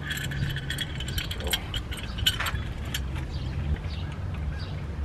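Metal tools clicking and clinking against a car's front brake caliper and bracket as the caliper is worked onto the new rotor, with a steady low hum underneath.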